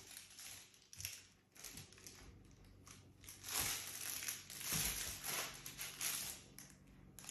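Irregular bursts of crinkling and rustling, some brief and some lasting most of a second.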